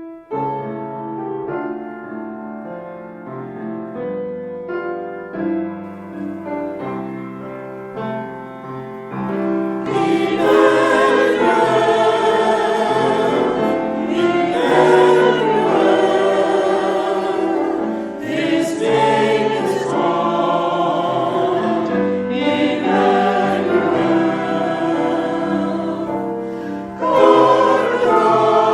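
Choir singing sacred music with accompaniment; about ten seconds in it becomes fuller and louder.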